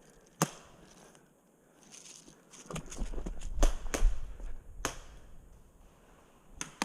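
Four sharp airsoft snaps: one about half a second in, and three between about three and a half and five seconds. A low rumble starts at about three seconds.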